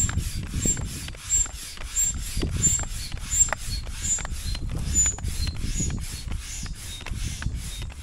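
Manual air pump inflating an inflatable kayak's air chambers: steady rubbing pump strokes, about one and a half a second. Each stroke carries a brief high squeak that gets lower in pitch later on.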